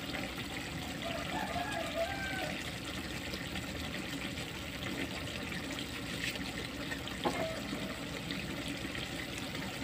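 Pork adobo simmering in soy sauce and vinegar in a frying pan, a steady bubbling.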